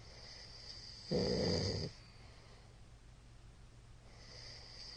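A middle-aged man snoring in his sleep: one loud snore about a second in, lasting under a second, wrapped in a hiss of breath. The hiss of the next breath starts near the end.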